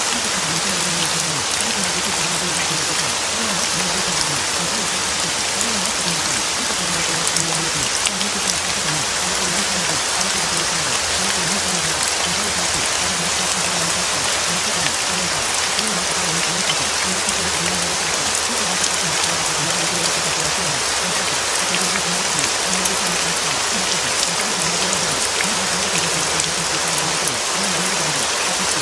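Steady rain falling, an even hiss of drops, with a faint low wavering hum underneath.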